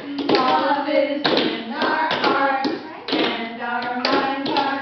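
Several adults singing a children's circle song together, with sharp hand slaps on the beat.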